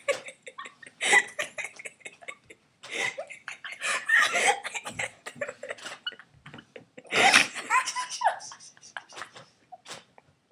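Two girls laughing uncontrollably in several breathy fits with short gaps between, the loudest fit about seven seconds in.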